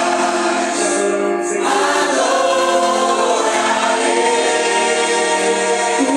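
Congregation and worship group singing a Portuguese gospel worship song with instrumental accompaniment, holding long sung notes.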